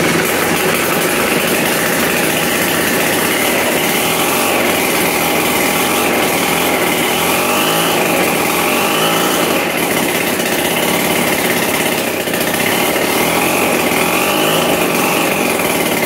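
Early-1960s David Bradley gear-drive two-stroke chainsaw engine running steadily under load, spinning a blender jar through an angle-grinder gearhead and blending its contents, with a high whine that wavers slightly in pitch.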